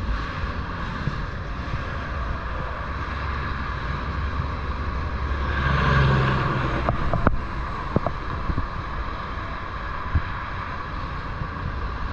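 Freight train cars rolling past a grade crossing: a steady rumble of steel wheels on rail that swells around the middle, with a few sharp clicks a second or so later.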